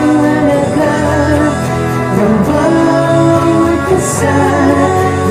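A male singer sings a slow inspirational Filipino pop-rock song in Tagalog, backed by a band with electric guitars, bass and drums.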